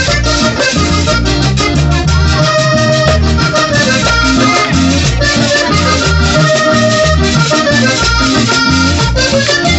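Live vallenato band playing an instrumental passage: a button accordion carries the melody over a pulsing bass line and a steady scraping, ticking percussion rhythm.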